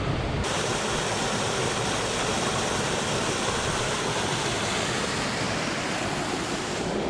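Waterfall's steady rush of falling water, a constant even roar that sets in about half a second in.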